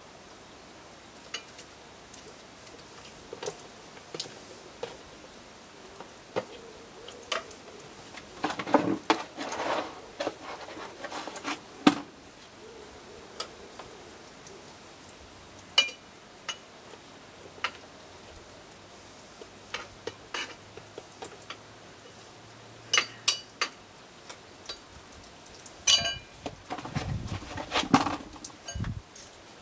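Wet sawdust pulp being scooped and scraped out of a plastic tub into the square steel chamber of a home-made briquette press: scattered clicks and knocks of the tub and tool. Longer bouts of knocking and scraping come about a third of the way in and again near the end.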